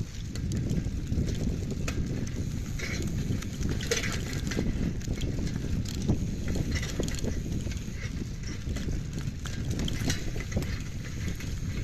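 Mountain bike ridden along a dirt forest trail: a steady low rumble of tyres on the ground, with irregular clicks and rattles from the bike over bumps.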